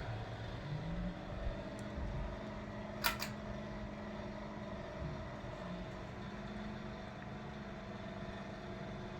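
Ceiling fan motor starting up and humming steadily, with a short sharp click about three seconds in.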